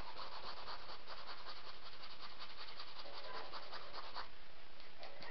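Small angled shader brush scrubbing acrylic paint onto a stretched canvas in quick back-and-forth strokes.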